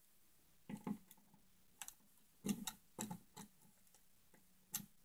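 Handful of light, irregular plastic clicks and taps from a new plastic switch cover plate being set over a wall light switch and lined up with its screw holes.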